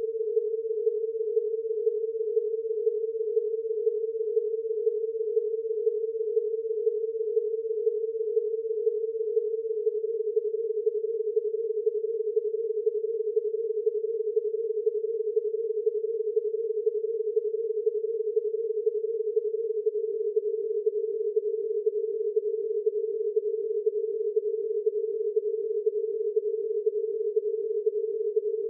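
A chord of ten pure sine tones at prime-number frequencies, sounding together around 400 to 500 Hz and beating against each other in a steady rapid pulsing. About ten seconds in and again near twenty seconds, the chord steps slightly lower as the set of primes shifts down by one.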